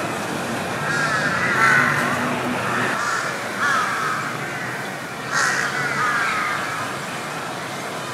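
Crows cawing repeatedly, several harsh calls in three bunches, over a steady low background noise.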